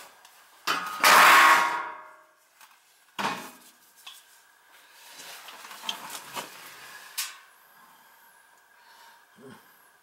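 Sheet-metal furnace access panel being handled and set aside: a loud scraping clatter about a second in, then scattered metal knocks and clinks and a sharp click near the middle, over a faint steady whine.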